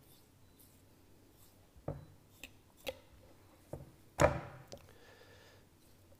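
Butcher's knife and pork belly working on a wooden cutting board: a few light taps and knocks, then one much louder knock about four seconds in as a cut piece of pork is set down on the board.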